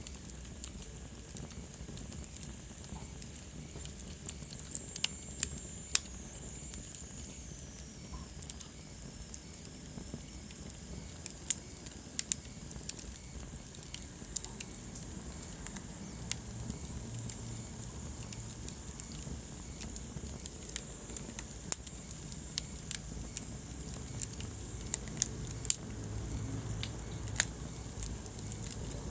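Wood fire crackling in a fireplace: irregular sharp pops and snaps over a steady low hiss, with a faint high whistle falling in pitch about five seconds in.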